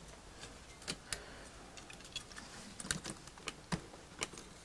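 Light, irregular clicks and taps of small connectors and parts being handled as the CRT of a Tektronix 211 oscilloscope is carefully unplugged.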